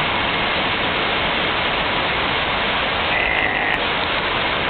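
Steady rushing noise of cooling fans from racks of network core switches and equipment, with a brief high tone about three seconds in.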